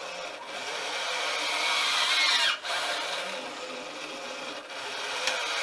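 Sail-winch servo of a homemade bag-valve-mask ventilator running as it squeezes and releases the Ambu bag. Its geared whine rises and falls in pitch and stops briefly where the arm reverses, about two and a half seconds in and again two seconds later.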